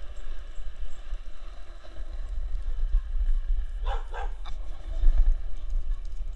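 Skateboard wheels rolling over a concrete road with a steady low rumble. About four seconds in, a dog gives two short barks in quick succession.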